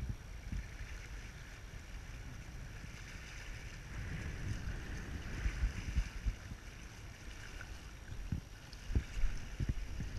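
Wind buffeting the microphone in gusts, over choppy lake water lapping.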